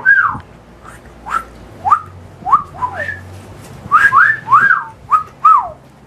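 A person whistling a string of about a dozen short notes at an irregular pace, each swooping up in pitch and back down, with a brief pause partway through.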